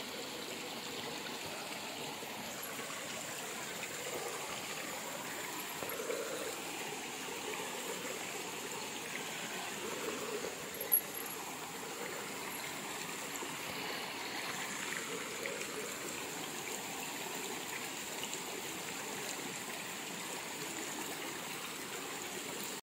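Shallow stream running over rocks, a steady babble of water, with one sharp click about eleven seconds in.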